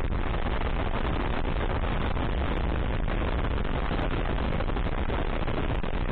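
Motorcycle being ridden, most likely the single-cylinder Kawasaki KLR 685, with a steady rush of wind on the microphone over the engine.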